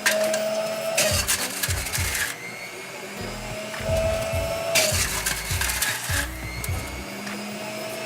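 Electric juicer running steadily while grapes are fed into it, with gritty bursts of crunching and grinding, one to one and a half seconds long, as the fruit goes through.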